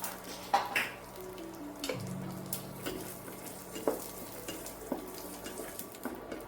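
Food frying in a pan and being stirred, with a cooking utensil knocking and scraping against the pan every so often.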